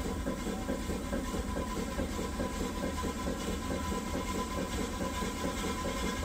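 Vee-twin slip-eccentric steam engine of a steam launch (7-inch cylinders, 8-inch stroke, non-condensing) running steadily under way: a quick, even mechanical beat of the reciprocating valve gear and rods over a steady hiss of steam.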